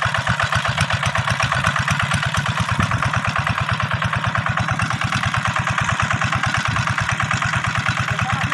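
Two-wheel hand tractor's single-cylinder diesel engine running steadily as it pulls a planting implement through tilled soil, with a fast, even beat of firing strokes.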